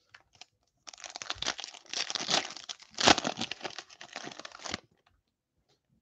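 Trading-card pack wrapper crinkling as it is torn open and handled. The crinkling starts about a second in, is loudest about three seconds in, and stops near the end.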